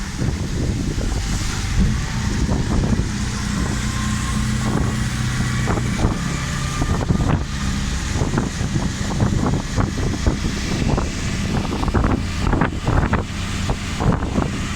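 Wind buffeting the microphone in irregular gusts over the steady hum of a vehicle engine.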